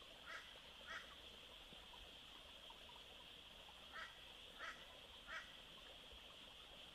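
Faint outdoor ambience: a steady high-pitched drone with five short animal calls, two about a second in and three more about four to five and a half seconds in.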